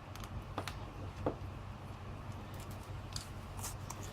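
A few light clicks and taps, with some short scraping sounds, from small tablet parts and tools being handled during disassembly.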